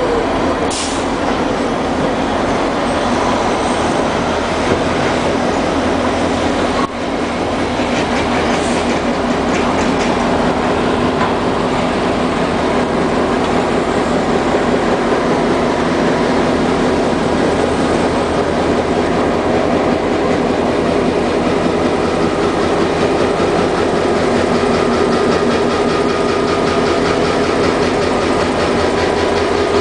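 The EMD 645 diesel engine of an SD38M locomotive running steadily and loudly.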